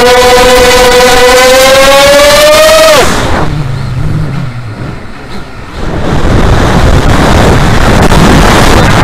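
FPV quadcopter's motors and propellers whining steadily, the pitch creeping upward, then cut off sharply about three seconds in as the throttle is chopped. After a brief quieter lull, loud rushing wind noise takes over on the onboard microphone as the quad dives nose-down.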